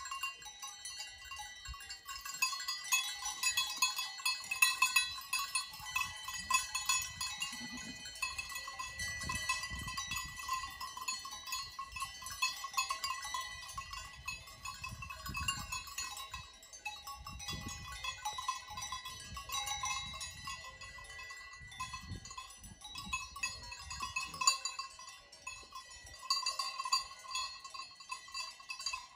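Alpine livestock bells on grazing animals clanking and jingling continuously, several bells ringing at once. A few low rumbles come in between.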